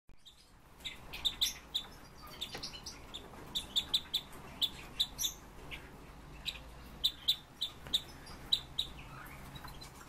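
Red-billed leiothrix (Pekin robin) calling: a string of short, high chirps at irregular intervals, thinning out near the end.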